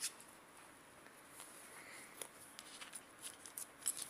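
Faint, scattered little clicks and squelches of soft PVA-glue slime being poked and kneaded by hand, coming more often near the end.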